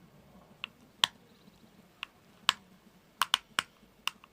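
About eight sharp, scattered clicks and light taps from working a grease applicator at the wiper motor's gearbox housing while grease is forced in through a service hole.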